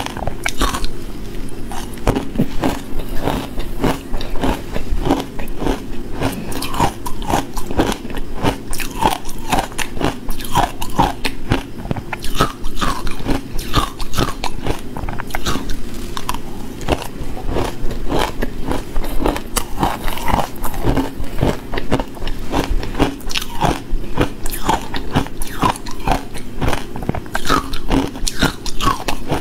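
Crushed green matcha ice being bitten and chewed close to a clip-on microphone: a dense, unbroken run of crisp crunches and crackles.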